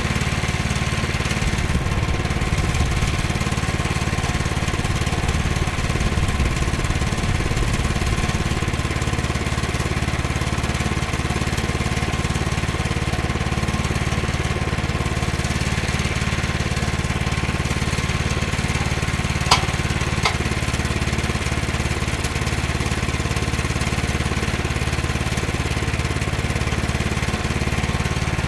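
Small gasoline engine of a Woodland Mills HM122 portable sawmill running steadily, with two sharp knocks in quick succession about two-thirds of the way through.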